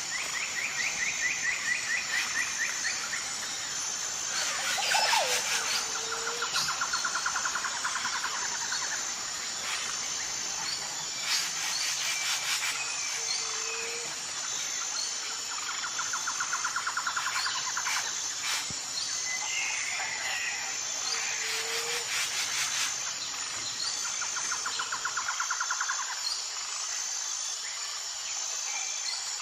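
Jungle ambience: a steady high-pitched insect drone under bird calls, with rapid trills lasting two or three seconds each that recur about every five seconds, and a few short low whistled notes.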